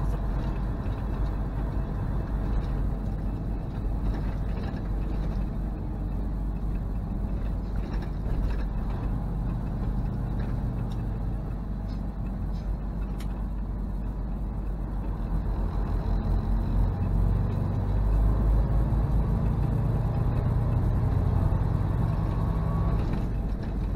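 Semi truck on the road: a steady diesel engine and road rumble that grows louder about two-thirds of the way through.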